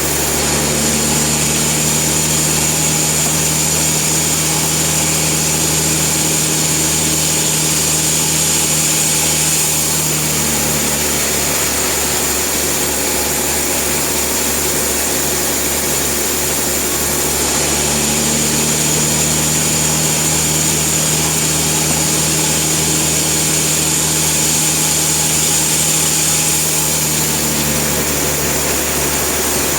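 Sawmill machinery running steadily. A higher hum joins it twice, each time for about ten seconds: once near the start and once just past halfway.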